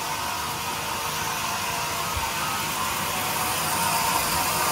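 Band sawmill running with no wood in the cut, a steady whir, with a soft knock about two seconds in.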